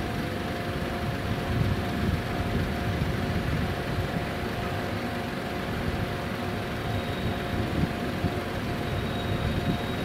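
Type 923 Doctor Yellow shinkansen trainset rolling slowly through a level crossing: a steady low rumble with a few held tones over it and a faint high tone joining about seven seconds in.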